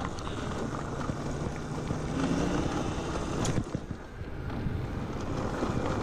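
Wind buffeting the microphone over the rumble of bicycle tyres rolling on a gravel path, with a single knock about three and a half seconds in.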